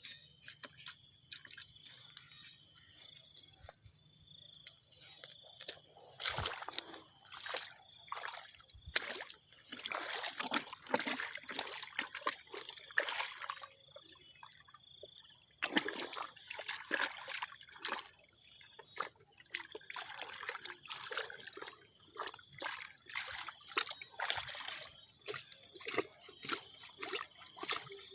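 Footsteps sloshing through shallow floodwater and mud in a flooded rice field: irregular runs of splashing steps that start about six seconds in and come and go, with insects trilling steadily underneath.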